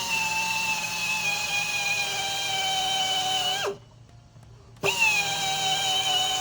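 Pneumatic low-speed tire buffer (geared air motor, about 2800 RPM) running with a steady whine that sags a little in pitch. Just under four seconds in, the throttle is released and the whine falls away to a stop. About a second later it is triggered again: it spins up with a quick rising whine and settles back to a steady run.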